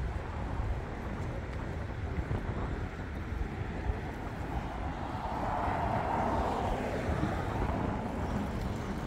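Outdoor traffic ambience with a steady low rumble of wind on the microphone. A vehicle swells up and fades away as it passes, about five to seven seconds in.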